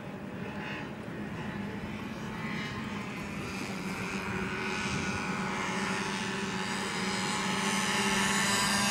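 Radio-controlled model Short Sunderland flying boat in flight, its four propeller engines running with a steady hum that grows louder as the plane comes closer.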